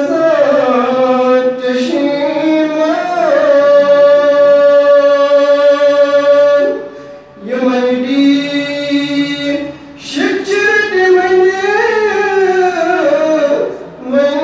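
A man singing a naat, a devotional poem in praise of the Prophet, unaccompanied, in long drawn-out melodic lines with ornamented bends in pitch. He pauses briefly for breath twice.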